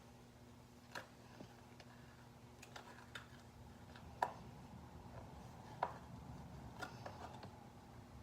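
Irregular small clicks and taps of a plastic pry card being worked under a Galaxy S7's glued screen against its aluminium frame, the sharpest about four and six seconds in, over a low steady hum.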